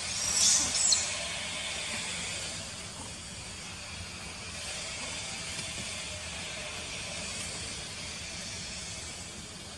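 Steady high-pitched insect drone, with a short high squeak about half a second in.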